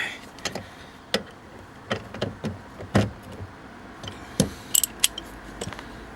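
Hand work under a car's dashboard: irregular clicks, taps and knocks from tools and small plastic and metal parts being handled, about a dozen in six seconds, with a quick run of sharper, higher clicks a little before the five-second mark.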